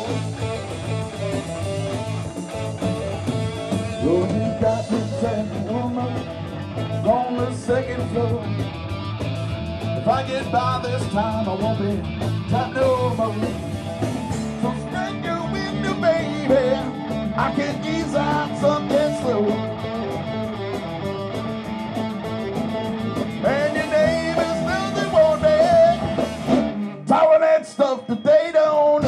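Live rock band playing, electric guitar to the fore over bass and drums, with a short break in the bass and drums near the end.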